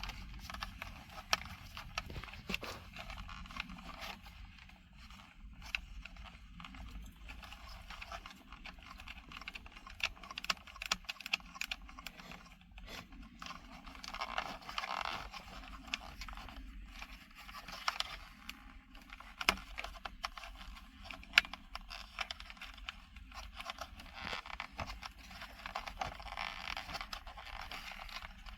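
Cables and plastic connectors being handled and plugged into the back of a car stereo head unit: scattered sharp clicks with scraping and rustling.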